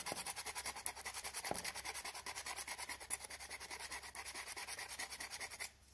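Hand-sanding a plastic weld seam on a plastic camper-van trim piece with abrasive paper. Fast, even back-and-forth rubbing strokes that stop shortly before the end.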